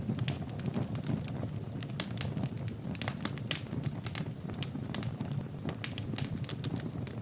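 Wood fire burning in a fireplace: a steady low rush of flames with frequent, irregular sharp crackles and pops.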